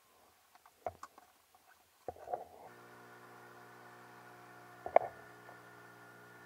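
A few light knocks and clicks, then from about two and a half seconds in the steady, even hum of a boat's outboard motor running at cruising speed. A sharp knock about five seconds in is the loudest sound.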